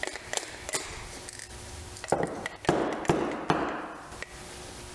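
A run of sharp knocks and taps on a CP7732 compact impact wrench housing, as it is knocked to work loose broken air-motor parts stuck inside. Light clicks come first, then heavier knocks from about two seconds in.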